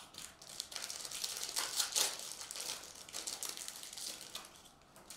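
Foil wrapper of a baseball card pack crinkling and crackling as it is torn open by hand, loudest about two seconds in and fading out near the end.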